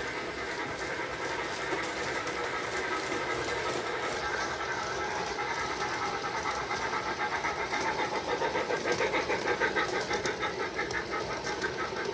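Bachmann G-scale Percy model locomotive's DCC sound decoder playing rhythmic steam chuffing through its onboard speaker, over the whirr of the running model. The chuffing grows louder in the second half.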